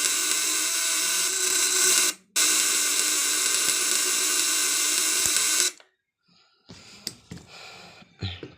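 Home-wound SPS-type battery inverter transformer running and buzzing loudly with a harsh, steady snore-like hum. It cuts out for a moment about two seconds in and stops abruptly just before six seconds, leaving a few faint clicks. The builder puts the buzz down to too little damping in the winding.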